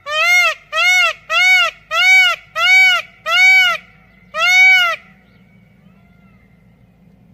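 Peacock calling: a series of seven loud calls, each rising and falling in pitch, about one and a half a second, the last after a brief pause.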